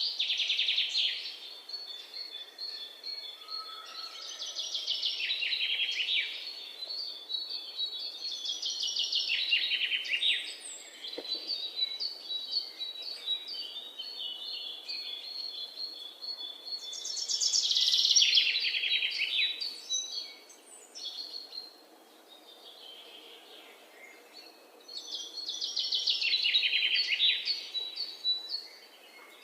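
Songbirds singing: a fast, falling trill phrase about two seconds long, repeated several times, with thin high chirps in between.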